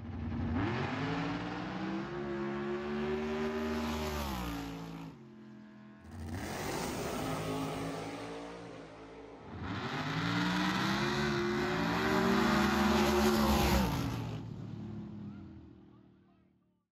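Drag racing cars launching and running down the strip, engines at full throttle, in three separate runs cut together. In each the engine pitch climbs and then falls away as the car pulls off down the track; the last one fades out near the end.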